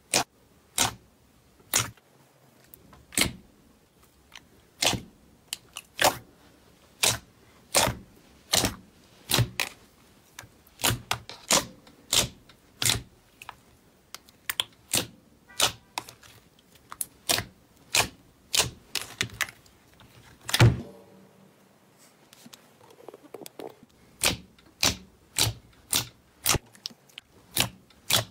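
Sharp pops and clicks from thick white slime as fingers press into it, about one a second, with a louder pop about two-thirds through and then a short pause before they start again.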